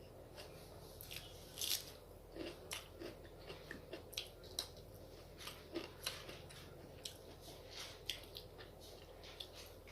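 Chewing and wet mouth smacks of a person eating rice with chicken curry, saag and fried eggplant: a run of short, irregular clicks, the loudest about two seconds in.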